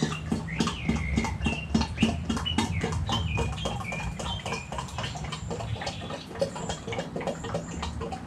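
Hand pump of a Greenworks 1.25-gallon garden sprayer being worked up and down to pressurize it, a fast, even run of pump strokes, about five a second. High wavering chirps sound over the first five seconds.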